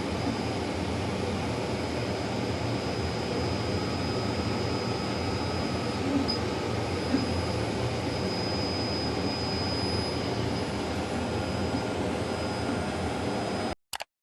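Laser printer running steadily, a constant mechanical drone with a faint high whine, which cuts off abruptly near the end, followed by a brief click.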